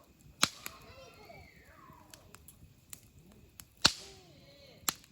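Campfire wood crackling, with three sharp loud pops, about half a second in, near four seconds and near the end, and fainter ticks between them. Faint voices, children's among them, carry underneath.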